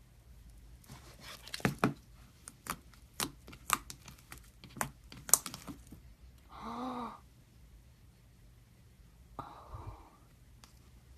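Slime being squeezed and pressed, giving a quick run of sharp crackles and pops for several seconds, then a short voice-like moan that rises and falls in pitch, about halfway through.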